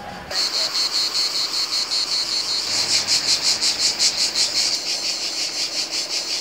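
Cicadas singing in a chorus, a high buzz with a fast even pulsing, which cuts in suddenly a moment after the start.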